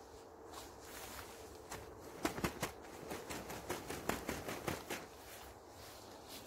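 Footsteps on rough grass and the crinkle and rustle of a ground tarp and down sleeping bag being handled, with a quick run of sharp crackles from about two seconds in until about five seconds in.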